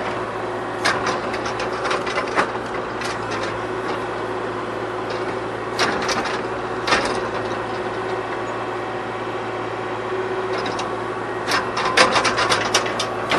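Kubota KX040 mini excavator's diesel engine running steadily while its bucket scrapes and knocks through hard, compacted soil, with clusters of sharp scraping a second or two in, around six to seven seconds, and near the end.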